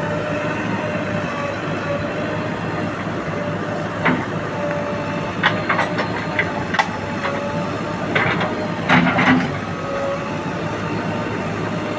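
A steady machine engine drone with a series of sharp knocks and clatters from about four to nine and a half seconds in, loudest near the nine-second mark.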